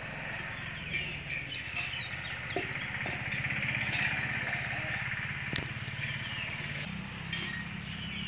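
An engine running steadily with a low, even hum whose pitch steps up slightly about seven seconds in, while birds chirp.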